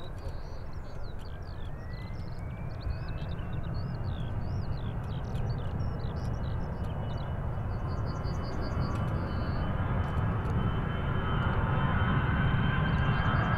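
Twin rear-mounted turbofans of a Bombardier Global business jet spooling up for take-off: a whine that rises in pitch over the first few seconds and then holds steady, over a jet rumble that grows steadily louder.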